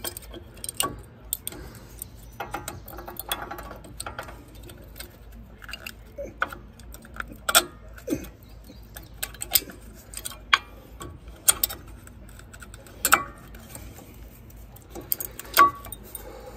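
Metal-backed brake pads clicking and clinking against their metal abutment clips as they are pressed by hand into a Ford F350 Super Duty's front caliper bracket. Irregular sharp clicks, a few of them much louder than the rest.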